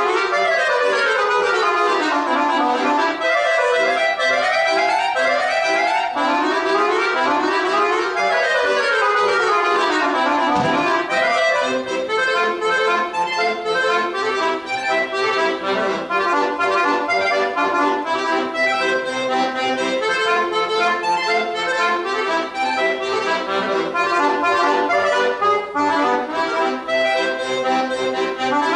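Accordion played solo: quick runs sweeping up and down for about the first ten seconds, then a steadier passage of sustained chords.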